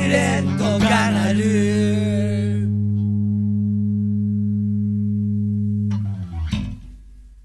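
The end of a rock song: the last sung note fades about a second and a half in, then a held chord on guitar and bass rings out steadily. Near the end a final short stroke sounds and dies away, and the track cuts off to silence.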